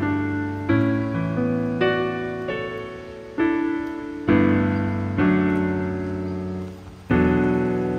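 Piano music: slow chords struck roughly once a second, each left to ring and fade, with a longer pause before the last one.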